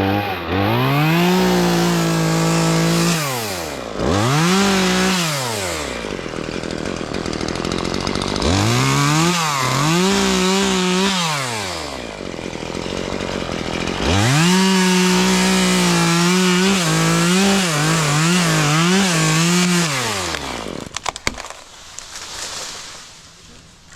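Two-stroke chainsaw revved to full throttle in four bursts, dropping back toward idle between them, with quick throttle blips in the last long burst before it falls away near the end.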